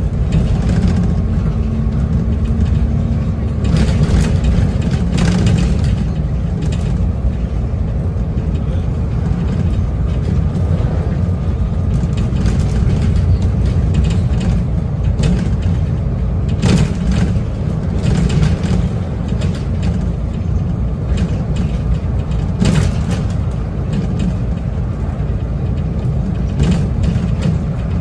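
Bus in motion, heard from inside near the front: steady engine and road rumble, with scattered rattles and knocks from loose fittings every few seconds.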